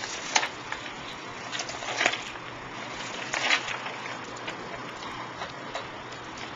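Papers rustling as they are handled on a table, in a few short bursts about two seconds apart, over the steady hiss of an old videotape recording.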